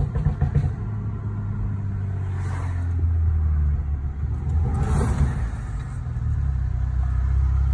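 Straight-piped BMW N55 turbocharged inline-six heard from inside the cabin on the move, a deep steady exhaust drone that builds toward the end. A quick burst of sharp pops in the first half second is the burble map of its MHD stage 2+ tune.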